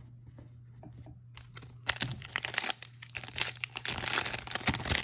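Magic: The Gathering booster pack's foil wrapper being torn open and crinkled in the hands, a dense crackling rustle that starts about two seconds in.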